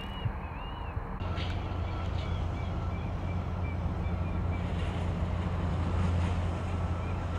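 Twin-engine narrow-body jet airliner at takeoff thrust, lifting off and climbing out: a steady low rumble with hiss and a faint high whine, which swells slightly towards the end.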